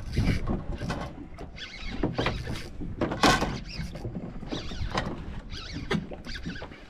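Fishing reel being cranked against a hooked fish, its mechanism whirring and squeaking unevenly under load.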